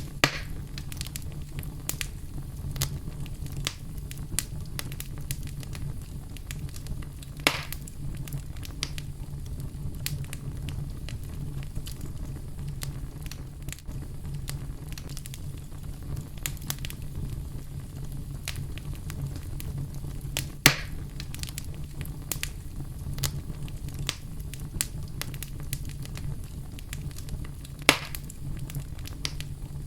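Fire burning in a fireplace: a steady low rumble of flames with frequent small crackles and four louder sharp pops, the first right at the start, then about seven seconds in, about twenty seconds in and near the end.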